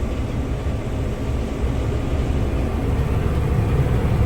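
Combine harvester running steadily under load while cutting a crop of oats, a dense, even machine noise.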